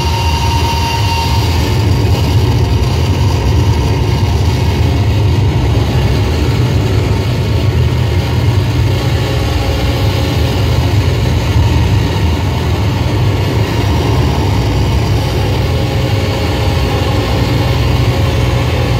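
Live noise-music drone played through amplifiers: a loud, steady wall of sound with a heavy low hum and hiss above it, with no beat. A few held tones come and go within it.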